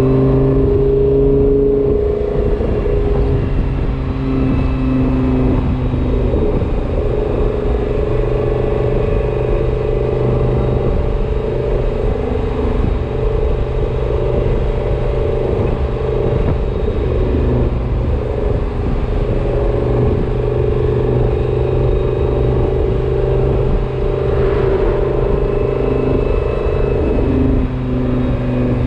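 Car engine running steadily with a whine that the owner is unsure is normal.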